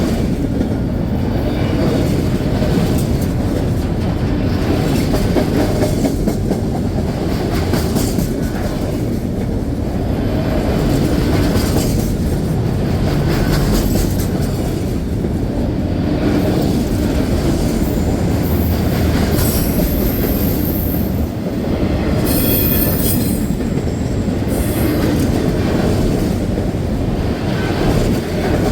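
Train cars rolling past on the rails with a steady heavy rumble and regular wheel clicks, and two brief high-pitched wheel squeals about two-thirds of the way through.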